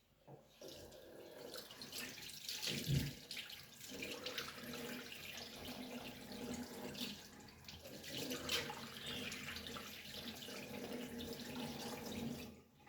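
Water running steadily from a tap into a sink, cutting off just before the end.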